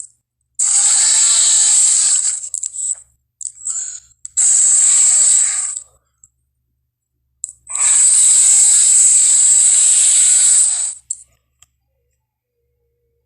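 Three long, harsh hisses from a dinosaur monster sound effect, made from pieces of Carcharodontosaurus and Godzilla snarl effects. The third hiss is the longest, about three seconds.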